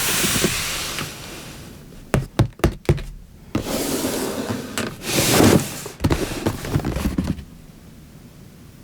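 LEGO Technic plastic parts being handled and fitted together: a quick run of sharp clicks and knocks, a louder stretch of rustling and rattling, then more clicks.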